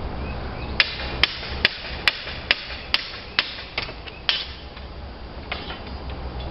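A roofer's hammer striking about nine sharp blows, roughly two a second, nailing during slate roof repair, then stopping after about four seconds.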